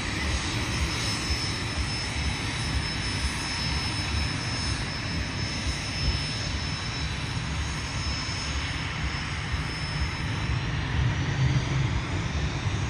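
Twin turbofan engines of a Cessna 560 Citation Ultra business jet running at taxi power: a steady high whine over a low rumble. The highest whine tones fade about ten seconds in.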